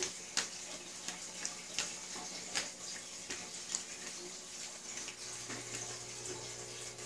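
Hands flattening and working a ghee-greased ball of dough: faint, irregular sticky clicks and pats over a steady background hiss. A low hum comes in about five seconds in.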